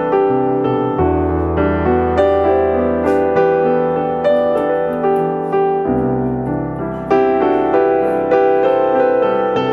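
Piano music: a steady run of struck notes, about two a second, over low bass notes that change about a second in and again a little past halfway.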